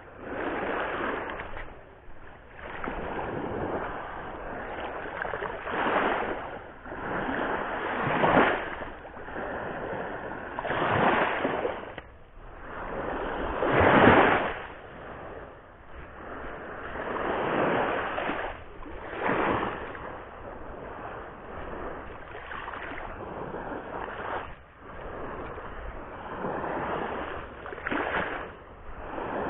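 Sea surf breaking and washing along the shore, swelling and ebbing every couple of seconds, with the biggest surges about eight and fourteen seconds in.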